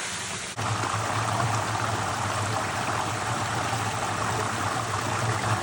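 Steady rush of a fast-flowing canyon creek running high, jumping louder about half a second in.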